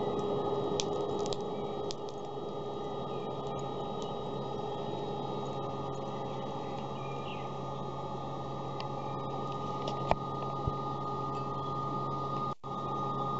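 Lotus Grill's battery-powered fan whirring steadily as it blows air up through the burning charcoal, with two sharp clicks about ten seconds in.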